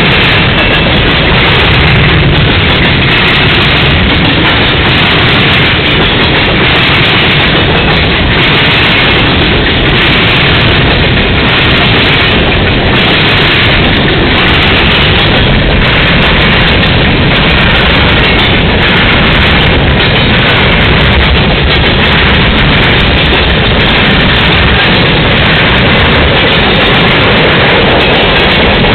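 Freight cars of a long freight train rolling past close by: a loud, steady rumble and clatter of steel wheels on the rails.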